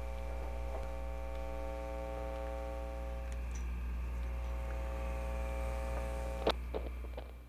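A steady low hum with a held chord of steady tones above it, a sharp click about six and a half seconds in with a few fainter clicks after, then it all fades away.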